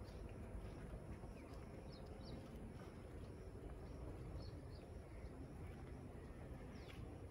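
Faint birds chirping outdoors, short high calls repeating irregularly, over a steady low background rumble.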